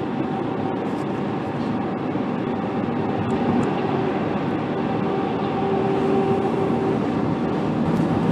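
Steady road and engine noise of a car at highway speed, heard from inside the cabin: a low rumble and tyre hiss with a faint steady hum, growing a little louder after about three seconds.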